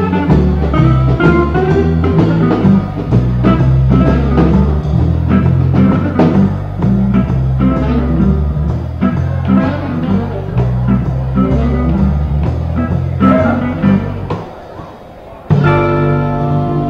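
Blues band recording: guitar lines over a bass line and drums. Near the end the band drops much quieter for about a second, then comes back loud on a held chord.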